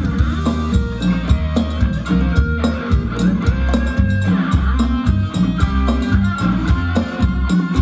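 Live band playing ramwong dance music with a steady drum beat and a strong bass line.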